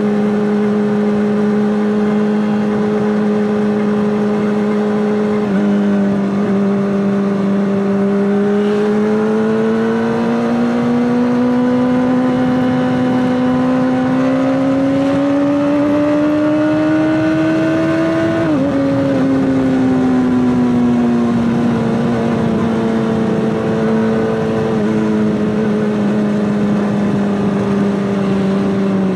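Honda CBR600RR inline-four running through an Akrapovic exhaust at steady mid revs. Its note climbs slowly in pitch for about ten seconds, drops suddenly about two-thirds of the way through, then eases back down and holds steady.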